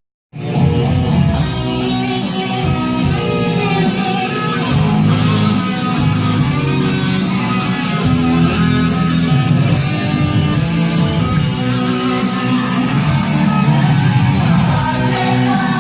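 Rock music led by guitar, starting after a brief moment of silence and playing steadily on.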